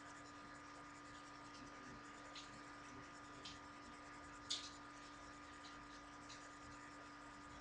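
Near silence: room tone with a steady electrical hum and a few faint, scattered clicks, the clearest about four and a half seconds in.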